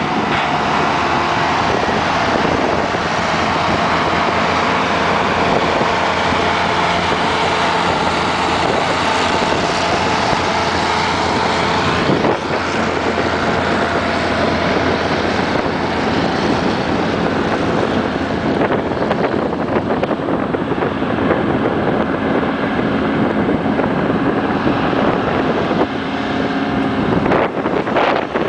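Diesel engines of heavy oilfield haul trucks running steadily as they tow rig loads along a desert road, with wind buffeting the microphone. About halfway through, the sound shifts as the first truck moves off, and the engine note of a second truck towing the mast grows near the end.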